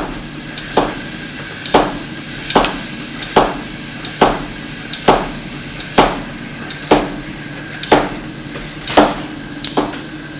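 Bicycle floor pump being worked by hand, about one stroke a second, each stroke a short rush of air and a knock. It is inflating a tubeless BMX tire on its rim while the bead is still creeping up toward its seat.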